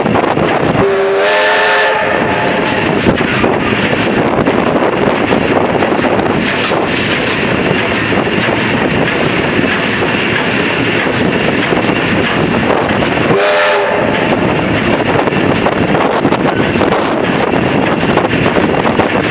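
Steam locomotive 3237, an NSWGR 32 class 4-6-0, running with a steady rush of motion and wind noise, and sounding its steam whistle twice: a blast of about a second near the start and a shorter blast about two-thirds of the way through.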